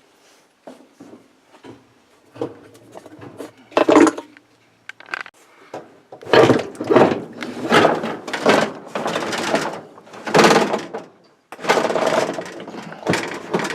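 Hands working on washing machine parts: scattered light clicks and knocks, then from about six seconds in a run of loud scraping, rattling strokes roughly a second apart as the parts are worked loose.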